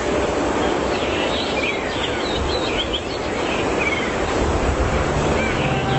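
Steady outdoor noise with high, quick chirping calls scattered through the first three seconds or so; soft music with held tones comes in near the end.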